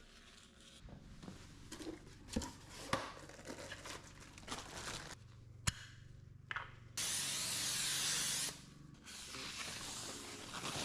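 Hand work on a car's rear disc brake: scraping and rubbing with scattered clicks and knocks, one sharp click a little past halfway. About seven seconds in comes a steady hiss lasting about a second and a half, then a fainter hiss.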